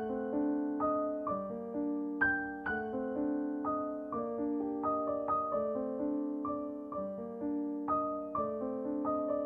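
Background music: a soft piano tune, single notes and chords struck about twice a second and left to ring.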